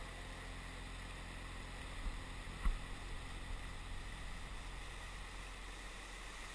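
White-water river rapids rushing steadily, with one brief low thump about two and a half seconds in.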